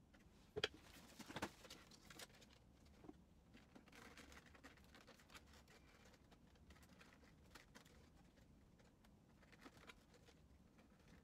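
Near silence with faint scattered clicks and rustling of hands handling plastic ink tubes and printer parts. A sharper click comes about half a second in and another about a second later.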